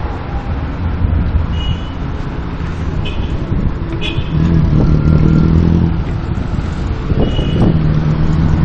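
Road traffic heard from a moving bike: a steady low rumble of car engines, with a steadier engine hum coming in about halfway through.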